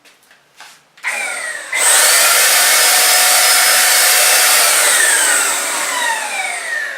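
Homeright Super Finish Max HVLP paint sprayer switched on about a second in, then spraying wood primer with a loud, steady rush of air from about two seconds. Near the end a falling whine as the turbine winds down.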